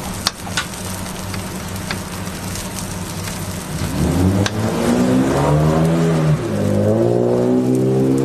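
A metal spatula scraping and tapping on a flat-top griddle while shredded onion sizzles. About halfway through, a louder engine-like drone with a rising, wavering pitch comes in and covers it, typical of a passing motor vehicle revving.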